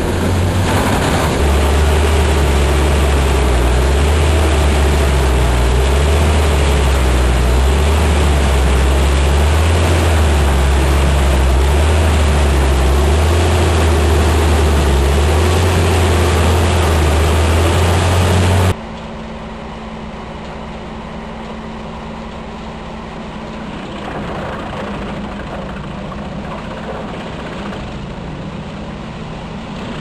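Starchl U-1200 drum wood chipper running under load, chipping crane-fed logs and blowing the chips out of its spout: a loud, steady deep drone over noisy chipping. About two-thirds of the way in, the sound drops abruptly to a quieter, steady machine noise as the chipper is heard working in a different place.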